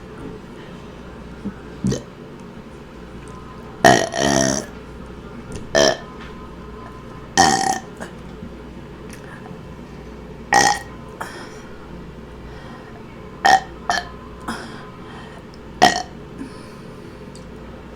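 A woman burping on command, about eight short belches every two seconds or so, over a steady low hum. The longest and loudest comes about four seconds in.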